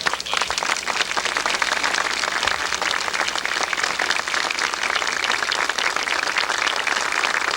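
Audience applauding, a dense, steady clapping that begins as a speech ends and carries on without a break.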